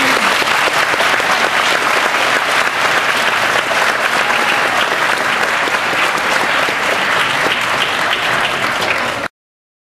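Audience applauding: many hands clapping in a dense, steady patter that stops abruptly about nine seconds in.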